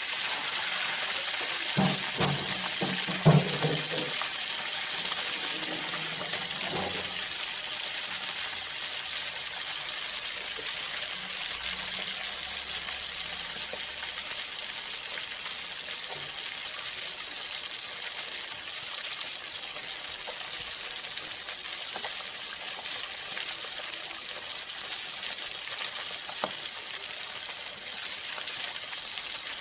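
Fish frying in hot oil in a wok: a steady sizzle, with a few sharp knocks about two to three seconds in and one more near the end.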